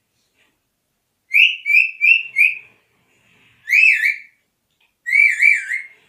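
Indian rose-ringed parakeet whistling: four short, quick notes, then two longer wavering whistles.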